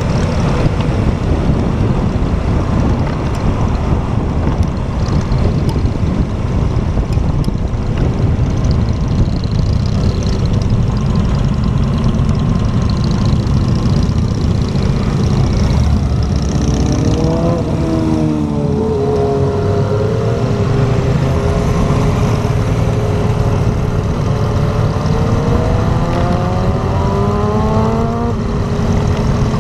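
Motorcycle engine heard from the rider's helmet camera, with heavy wind noise over it at speed. About halfway the wind drops and the engine note comes through, dipping as the bike slows. It then climbs steadily under acceleration and drops back near the end at a gear change.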